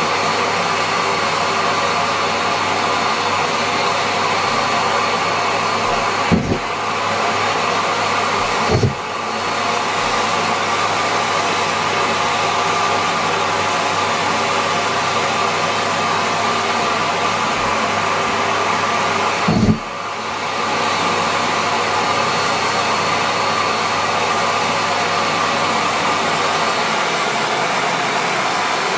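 Miele Complete C3 canister vacuum running steadily at full suction, with three brief knocks, each followed by a short dip in its sound.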